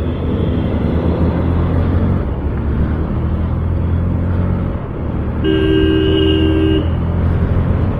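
Yamaha FZS V3 motorcycle's single-cylinder engine running steadily as the bike gathers speed in traffic. A vehicle horn sounds one steady two-note blast of just over a second, about five and a half seconds in.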